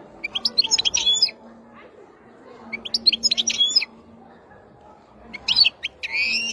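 Wild-caught European goldfinch singing: three bursts of rapid, high twittering notes, each about a second long, with about a second's pause between them.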